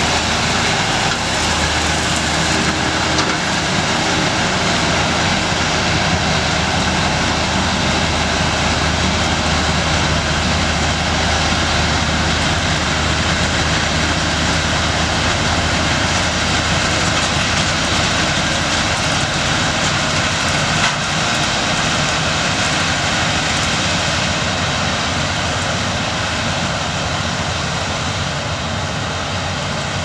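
Massey Ferguson 7618 tractor and Pöttinger Impress 185V Pro round baler running steadily while baling barley straw: engine and baler machinery under load. Growing slightly fainter near the end as the rig pulls away.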